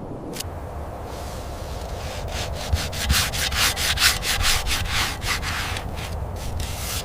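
Abrasive scrubbing on the metal body of a toy robot to strip rust and paint. A steady scrape turns, about two seconds in, into brisk back-and-forth strokes, about three a second.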